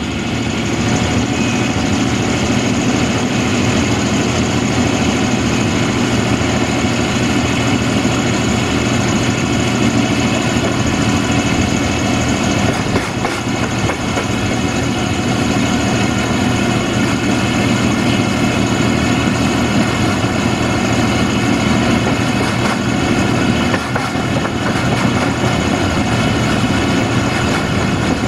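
VT614 diesel multiple unit running along the line, a steady diesel engine drone mixed with running and wind noise, heard at an open window. The sound swells just at the start.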